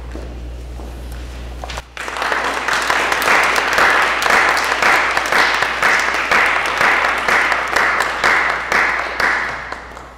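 Audience applauding, starting about two seconds in after a brief lull and dying away near the end.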